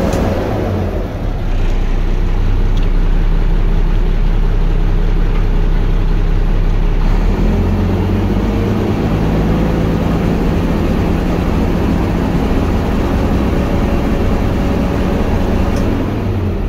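Mack AMI 12.0-litre diesel engine of a Mack Granite dump truck running steadily, heard from the cab, its note shifting slightly between about seven and nine seconds in.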